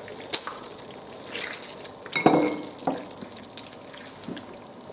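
Pieces of raw chicken breast going into a pan of simmering green curry and coconut cream sauce and being stirred in: several wet plops and knocks, the loudest just past halfway, over a low steady sizzle.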